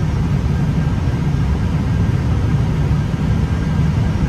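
Airbus A320 flight-deck noise on short final approach: a steady low rumble of airflow and engines.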